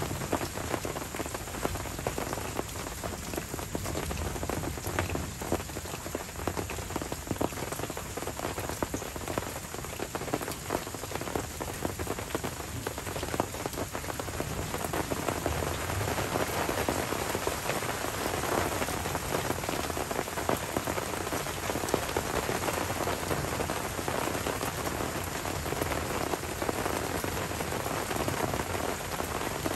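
Steady rain from a tropical summer thunderstorm falling on forest leaves and wet ground, a dense hiss of countless drops that grows a little heavier about halfway through.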